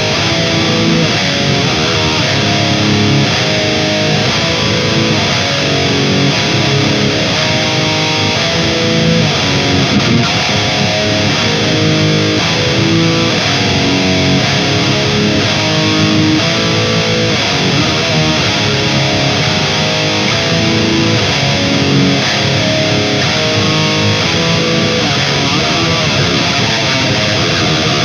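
High-gain distorted electric guitar playing heavy metal riffs through a Mooer 005 Brown Sound micro preamp pedal, boosted by a Tube Screamer and behind a noise gate, heard from a Mesa 4x12 cabinet with Vintage 30 speakers, close-miked with an SM57.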